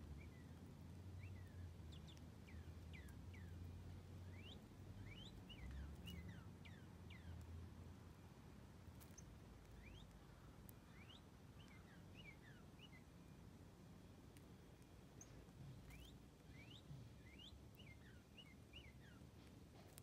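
Faint bird chirps: many short, quick notes sliding downward, coming in scattered clusters, over a low background rumble.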